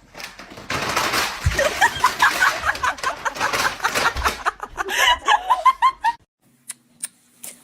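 A person laughing hard in a long run of quick, high-pitched laughs that stops about six seconds in, followed by a few faint clicks.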